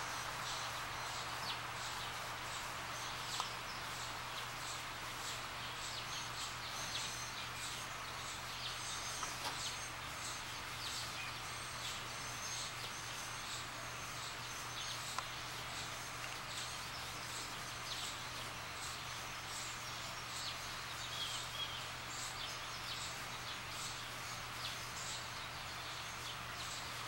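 Birds chirping, many short high chirps scattered through, over a steady background hiss and a low steady hum.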